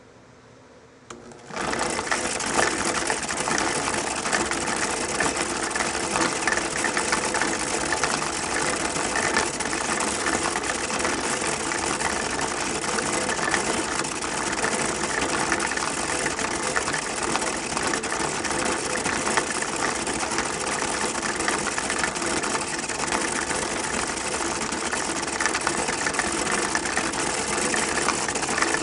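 Billiard-ball cleaning machine switched on about a second in, then running steadily with a loud, even mechanical noise.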